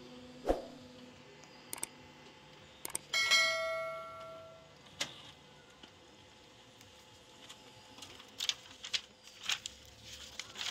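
A single bell-like metallic ring about three seconds in, dying away over about a second and a half, among scattered sharp clicks. Near the end come quick clicks and rustles as the printed colour test chart is handled.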